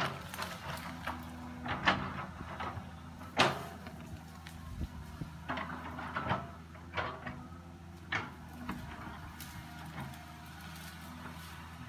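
Cat 315C excavator's diesel engine running steadily under load as its bucket pushes into the base of a tree, with sharp cracks and snaps of breaking wood and brush at irregular intervals, the loudest about three and a half seconds in.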